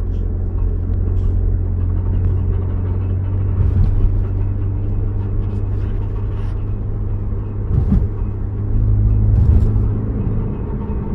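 Car making a steady low grinding rumble, with a few short clicks scattered through it.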